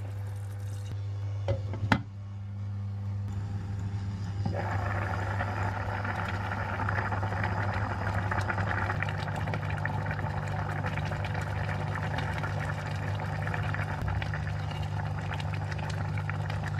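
A saucepan of curry bubbling on a hob, the bubbling growing fuller about four and a half seconds in, over a steady low hum. There is a single sharp knock about two seconds in.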